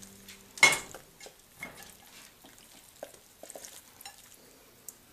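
Creamy fettuccine Alfredo being served onto a ceramic plate: one sharp clink of a utensil against the dish about half a second in, then soft wet slops and light clicks as the pasta is laid out.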